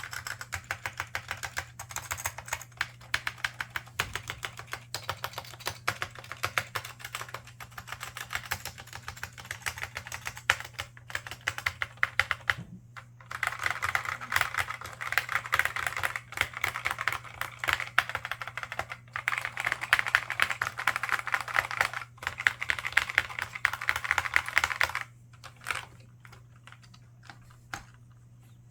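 Typing on a laptop keyboard with Alps SKFM switches and ABS doubleshot keycaps: fast runs of key clicks broken by brief pauses, thinning to a few scattered keystrokes near the end. A steady low hum sits underneath.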